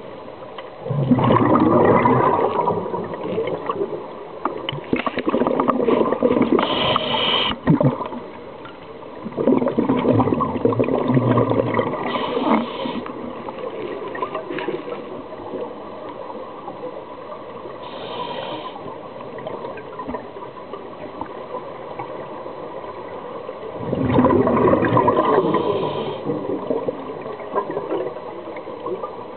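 Scuba diver's regulator breathing heard underwater: exhaled air bubbling out in bursts of a few seconds, the loudest about a second in and again near the end, with short hisses of the regulator between them.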